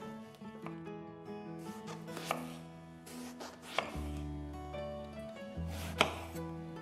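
A chef's knife slicing through an eggplant and knocking on a bamboo cutting board: a few sharp chops one to two seconds apart, the loudest near the end, over soft background music.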